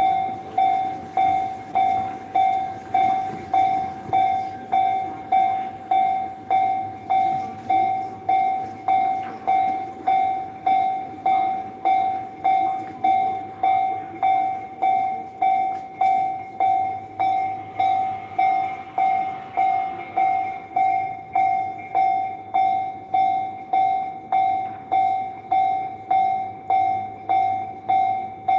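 Japanese railroad crossing warning bell clanging steadily, about three strikes every two seconds, each strike ringing and fading. A train runs through underneath it.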